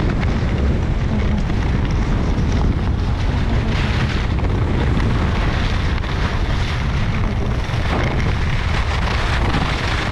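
Wind buffeting the camera microphone: a loud, steady rumble and rush with no break.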